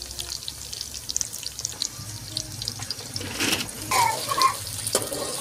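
Sliced onions sizzling in hot oil in an aluminium cooking pot, with a steady crackle of small pops, stirred now and then with a metal ladle.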